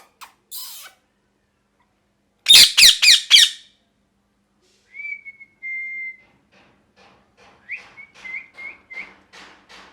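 Ringneck parrot calling. About two and a half seconds in it gives a quick run of four or five loud, harsh squawks. Then comes a whistled note that slides down and is held for about a second, and near the end a string of short rising whistles.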